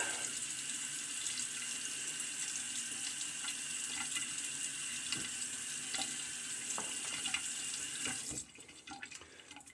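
Water running from a tap into a bathroom sink, a steady rush that is shut off about eight seconds in, with a few small knocks along the way.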